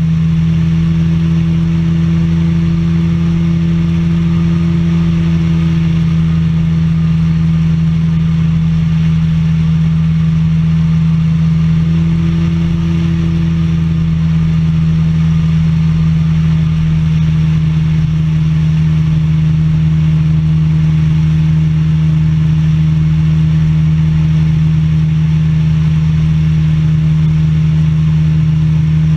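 Microlight trike's engine and pusher propeller running steadily in cruise flight: a constant drone that holds one pitch throughout.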